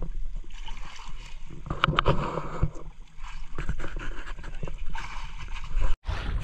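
Sea water sloshing and gurgling against the hull of a wooden outrigger fishing boat, with wind on the microphone. There are a couple of sharp knocks about two seconds in.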